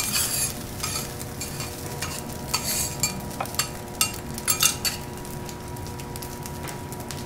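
Food sizzling on a teppanyaki iron griddle, with metal spatulas scraping and clinking across the hot plate. The spatula strokes stop about five seconds in, leaving a steady sizzle.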